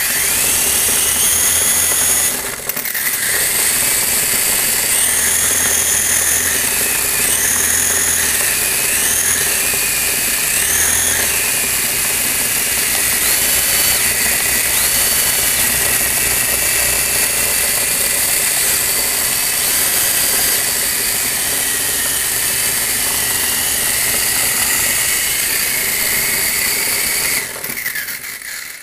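Toy helicopter's small electric motor and gears spinning its rotors: a steady mechanical whir with a high whine. It starts suddenly, dips briefly about two and a half seconds in, and falls away near the end.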